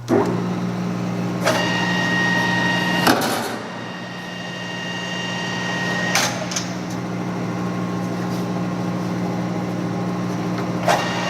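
Clausing Colchester 13x40 metal lathe running in its low speed range, the spindle and headstock gearing turning with a steady hum and a gear whine. It starts abruptly and is broken by a few sharp knocks.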